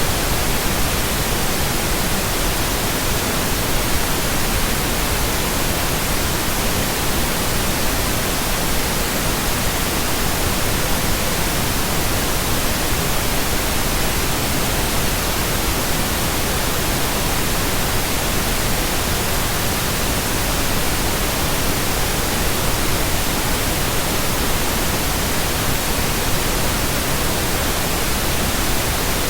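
Steady synthetic pink noise: an even, unbroken hiss spread across the whole range from deep to high, with no tones or rhythm in it.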